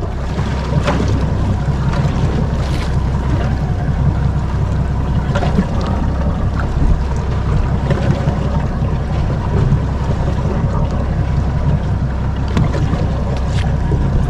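Wind buffeting the microphone and water slapping against a drifting boat's hull, over a steady low rumble.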